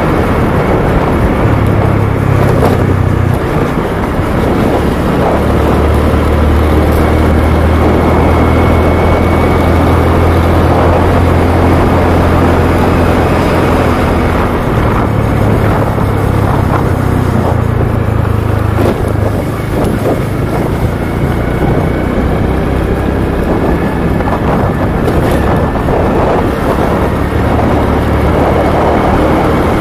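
Motorbike engine running at cruising speed, its low drone shifting a little in pitch as the speed changes, with wind and road noise rushing over the handlebar-mounted microphone.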